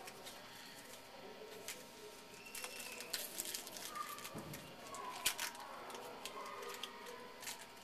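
Quiet handling of a baseball card pack and its cards: light rustling with scattered small clicks as the wrapper is opened and the cards are sorted.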